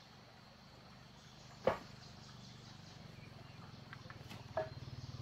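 Insects chirring faintly in the forest, with one sharp knock about a second and a half in and a smaller knock near the end, from someone working with a pole in the undergrowth.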